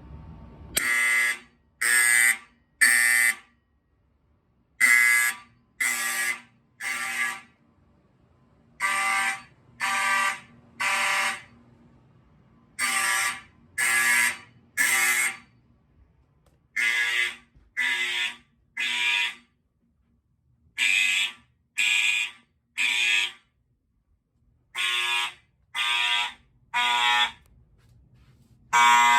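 Faraday 10123-1 fire alarm signal sounding in the Code 3 temporal pattern: three harsh half-second blasts a second apart, then a pause, repeating over and over.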